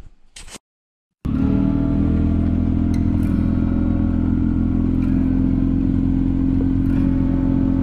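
Side-by-side utility vehicle's engine running steadily while driving. It comes in abruptly about a second in, after a short click.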